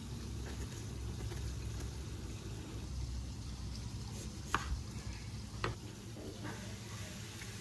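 Diced onion tipped into a bowl, then a chef's knife cutting a lime on a wooden cutting board, knocking sharply on the board twice about a second apart, over a low steady hum.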